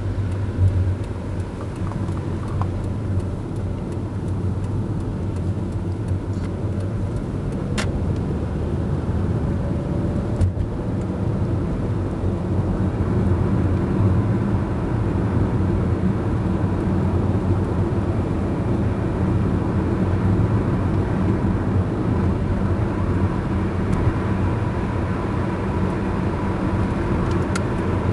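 Steady low rumble of a car being driven, heard from inside the cabin: engine and tyre noise, with a hiss from the tyres on a wet road.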